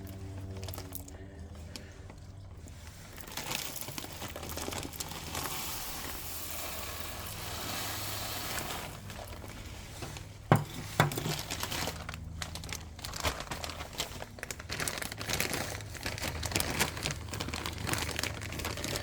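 Plastic bag of wild bird seed mix crinkling as it is handled and turned over, with one sharp knock about ten seconds in.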